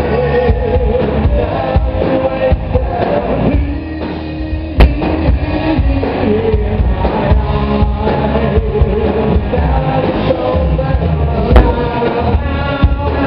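Live rock band playing: electric guitars, bass guitar and drum kit in a dense, loud mix, with two sharp hits standing out about five and eleven and a half seconds in.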